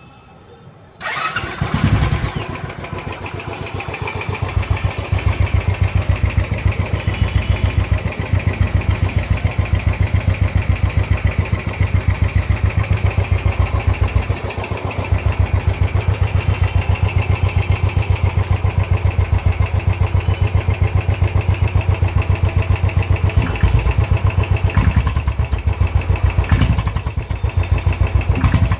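Royal Enfield Thunderbird 500's single-cylinder engine, breathing through an aftermarket Royal Enfield off-road silencer, starting about a second in and then idling with a steady, quick thumping beat. It is a cold morning start, so the idle hesitates a bit.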